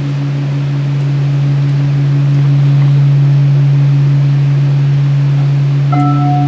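Steady low drone with its overtone, under an even hiss, likely from the stage sound at the start of a live set. About six seconds in, a clear, bell-like ringing note begins on top of it.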